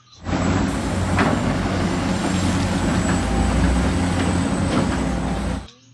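Caterpillar 365C hydraulic excavator working, its big diesel engine running under load, with a few sharp knocks. It starts abruptly just after the beginning and cuts off shortly before the end.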